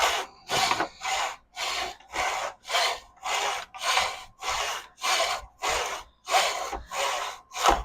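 Quarter-round wood trim being cut at 45 degrees in a Montgomery Ward hand miter saw. It goes in steady back-and-forth strokes, about two a second.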